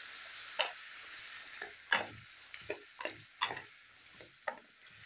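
Spiced pumpkin and potato pieces sizzling in a pan while a spatula stirs and turns them, the spatula scraping and knocking against the pan about ten times. This is the stir-frying (kasha) of the vegetables in their spice paste, with a splash of hot water just added. The sizzle thins toward the end.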